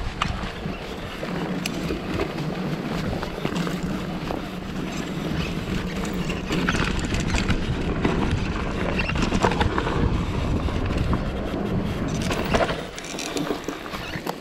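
Mountain bike ridden along a dirt trail: wind rushing over the microphone and tyres rolling, with many small rattling clicks from the bike. The noise drops off near the end.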